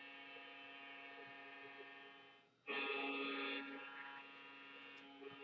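Quiet background music of steady held tones. It fades out about two and a half seconds in and, after a brief gap, comes back suddenly louder before settling.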